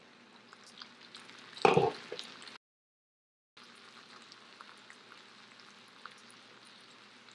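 Potato galettes sizzling faintly in an uncovered cast iron skillet, with small crackles. There is a brief knock about two seconds in.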